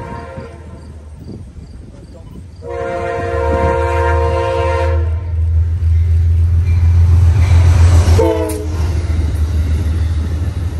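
Amtrak P32AC-DM diesel locomotive sounding its chime horn in what fits the long-long-short-long grade-crossing signal. A blast ends about half a second in, a long blast of about two and a half seconds follows, then a short blast drops in pitch as the locomotive passes. Under the horn, the deep rumble of engine and wheels swells to its loudest at the pass, then the passenger cars roll by.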